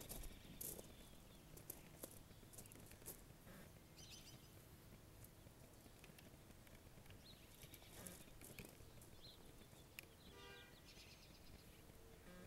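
Near silence outdoors: faint footsteps on grass and gravel and a few light clicks in the first few seconds, with a brief faint trill about ten and a half seconds in.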